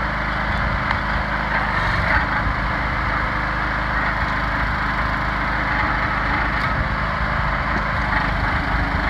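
Engine of a 40-ton log splitter running steadily while the machine splits firewood.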